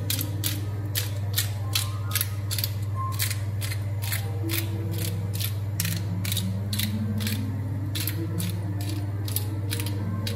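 Pepper grinder on a glass jar being twisted, its grinding mechanism clicking about three times a second as peppercorns are cracked. A steady low hum runs underneath.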